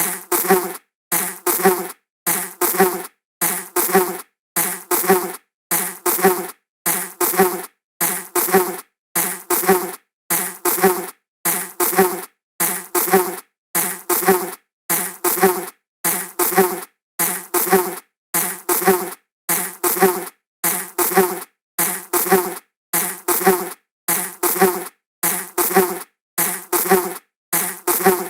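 A buzzing insect flying past, the same short fly-by buzz repeated over and over. Each buzz lasts just under a second and is followed by a brief silence, about one a second.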